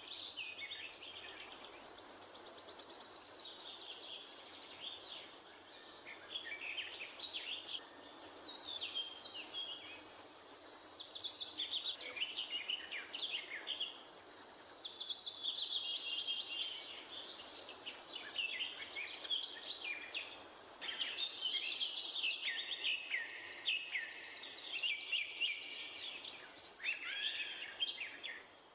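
Wild birds chirping and calling continuously, with many quick falling notes and stretches of high-pitched trilling, over a steady background hiss.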